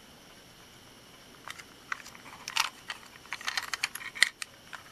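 Plastic Plarail toy train car of the Kiha 183 series being handled and turned over in the hands: a run of light plastic clicks and rattles that starts about a second and a half in and grows busier, loudest near the end.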